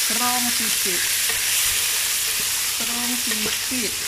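Pea eggplants frying in hot oil in a wok with a loud, steady sizzle, stirred with a spatula; they have just gone into the pan.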